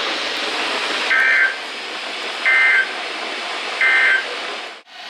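NOAA Weather Radio SAME end-of-message data bursts: three short, shrill two-tone digital warbles about a second and a half apart over steady radio hiss, marking the end of the weekly test transmission. The sound cuts out abruptly near the end.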